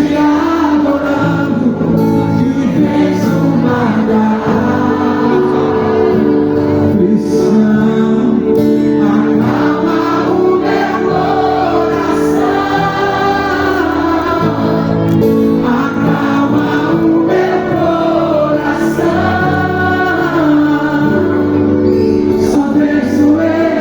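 Gospel song with sung vocals over sustained instrumental chords.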